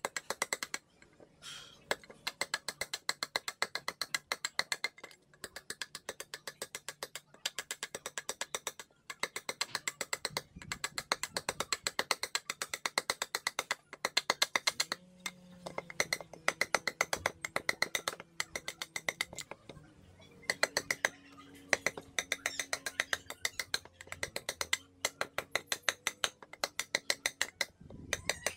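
Steel carving blade scraping and cutting the inside of a wooden bowl blank in quick, rhythmic strokes, several a second, coming in short runs with brief pauses.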